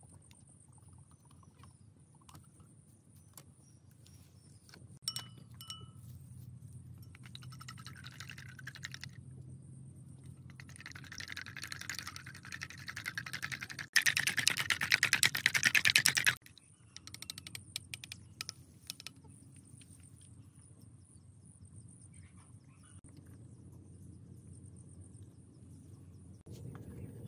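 Eggs being beaten with bamboo chopsticks in a metal pot: fast, even clattering strokes that come in spells, grow louder and peak about two-thirds of the way through, then stop suddenly. A steady high insect drone runs underneath.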